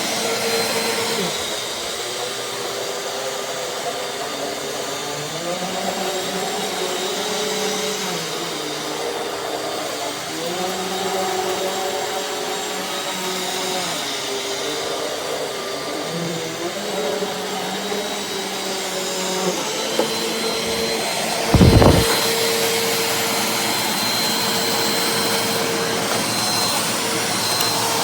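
Eureka AirSpeed NEU10AE4 bagless upright vacuum cleaner running, its motor tone shifting up and down repeatedly through the middle stretch. A single loud thump comes about 22 seconds in.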